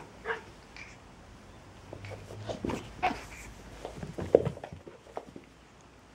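Two cats play-fighting on a cloth blanket: a few short cat cries over rustling and thumps, the loudest thump about four seconds in.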